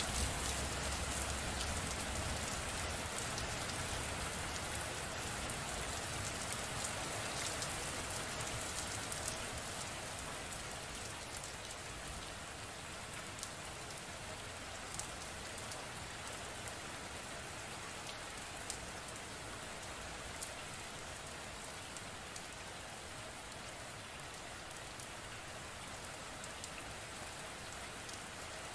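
Steady rain falling, with individual drops ticking on a surface. A low rumble in the first few seconds fades out, and the rain eases off slightly and then holds steady.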